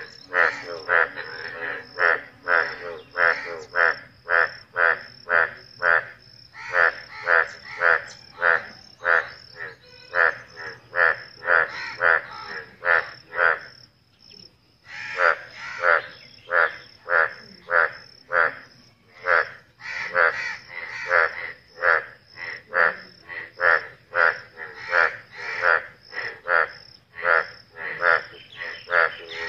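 A chorus of male Indian bullfrogs croaking their breeding calls after rain: a fast run of loud, evenly repeated croaks, about two or three a second, with a brief lull about halfway through.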